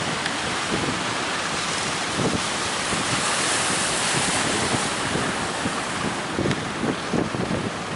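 Strong wind buffeting the microphone over the steady rush of sea waves, with a louder hissing surge of water about three to four and a half seconds in.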